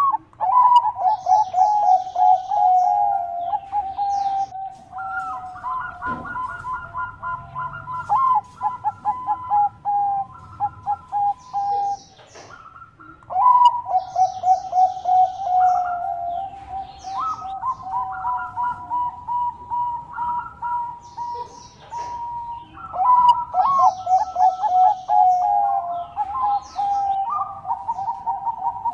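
Bangkok-type zebra dove (perkutut) singing its cooing song: repeated phrases, each opening on a higher note and running into a quick string of staccato coos, with a short pause about 12 seconds in. Faint high chirps of other small birds sound now and then.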